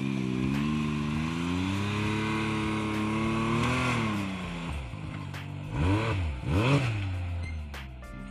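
Can-Am Maverick X3 XRC side-by-side, its turbocharged three-cylinder Rotax engine pulling steadily under load up a sand slope, the pitch rising a little. About six seconds in it gives two sharp revs, the loudest part, then eases off.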